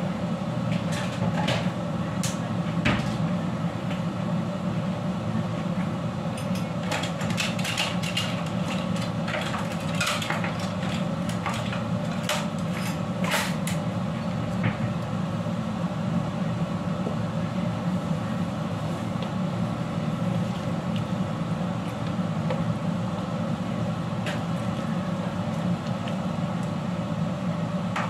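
Steady low kitchen hum under a run of light clicks and clatters of dishes and utensils being handled, thickest in the first half and with a few more near the end.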